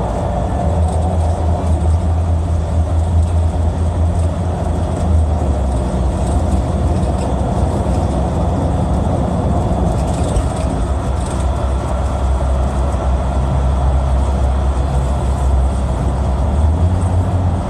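Steady low rumble and running noise of a vehicle moving at speed, heard from on board.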